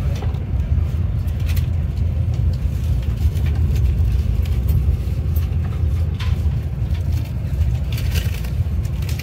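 Steady low rumble of the Sapsan high-speed train running at speed, heard from inside the passenger car, with a few light clicks scattered through it.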